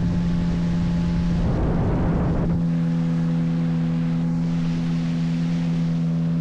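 Motorboat engine running at a steady speed, with a brief surge of rushing noise about two seconds in.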